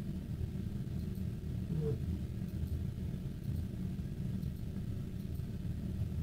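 Steady low background rumble with no speech, with a brief faint vocal sound about two seconds in and a few faint ticks.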